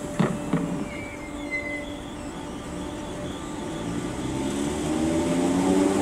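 Merseyrail Class 507 third-rail electric multiple unit gathering speed past the platform. Its traction motor whine rises steadily in pitch and grows louder over the last few seconds.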